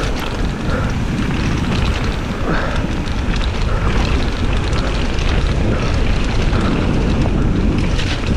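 Mountain bike descending a dirt trail at speed: wind rushing over the microphone and knobby tyres rolling on dirt make a steady rumble, with sharp rattles from the bike over bumps near the end.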